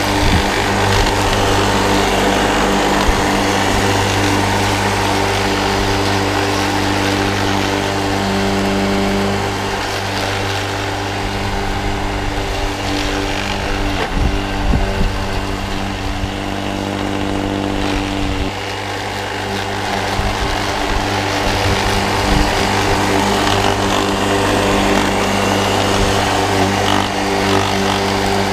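Walk-behind rotary lawn mower converted to a 2.2 kW, 3000 rpm electric motor, buzzing steadily as it cuts grass, with a few sharp knocks about halfway through.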